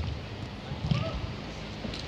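Five-a-side pitch sounds: a low rumble of wind on the microphone, a faint distant shout about halfway through, and two sharp knocks, one at the start and one about a second in.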